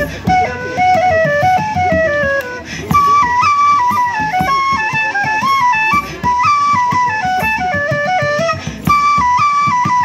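Live folk music: a flute plays a quick melody that moves in small steps, over a steady rhythmic accompaniment, in the manner of a traditional dance tune.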